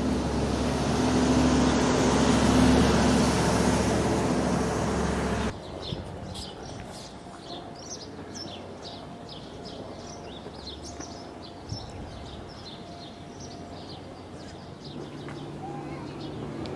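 A loud, steady vehicle engine with a broad rush of noise, cut off abruptly about five seconds in. After it, quieter street ambience with small birds chirping over and over.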